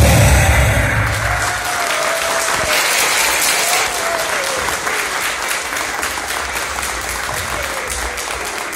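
Audience applauding, with the dance music dying away about a second in.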